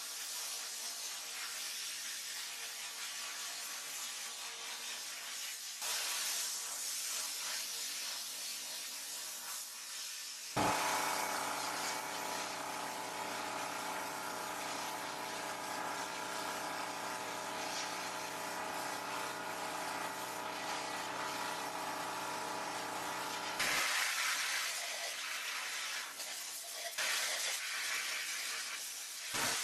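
Handheld sandblast gun in a blast cabinet hissing steadily as it blasts rust off a steel blowtorch body. From about ten seconds in until near the end, a steady hum with several pitches sounds alongside the blast, starting and stopping abruptly.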